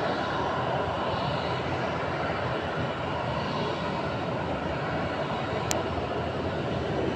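Boeing 737-800's CFM56-7B turbofan engines running steadily at low taxi power as the airliner rolls forward under its own thrust. A single short high-pitched tick comes about two-thirds of the way through.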